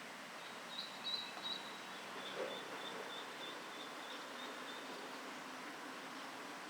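Eastern spot-billed duck ducklings peeping: high, thin calls, a few at first and then a run of short ones about two a second, over a steady background hiss.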